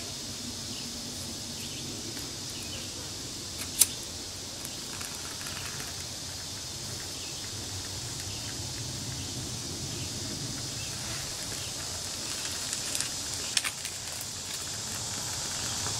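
Twig and fatwood-shaving kindling catching fire inside a folding steel Firebox stove, over a steady background hiss. There is one sharp snap about four seconds in and a few crackling pops near the end.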